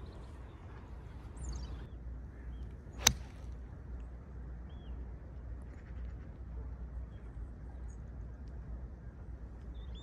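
A single sharp crack of a golf iron striking the ball off the tee about three seconds in. Under it runs a steady low rumble of wind on the microphone, with a few faint bird chirps.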